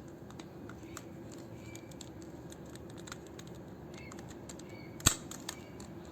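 Scattered light clicks and taps, with one sharp, louder click about five seconds in, over a steady low hum.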